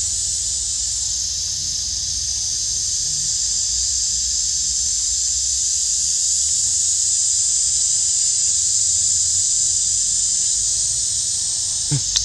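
Steady high-pitched drone of an insect chorus in woodland, with a brief knock near the end.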